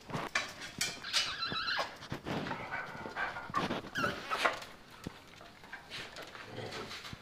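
Short animal calls, with scratchy clicking of claws on a concrete floor.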